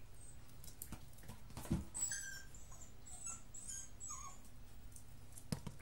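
A Miniature Pinscher whining in a string of short, high-pitched squeaks lasting about two seconds, just after a single thump, with a few light clicks scattered through.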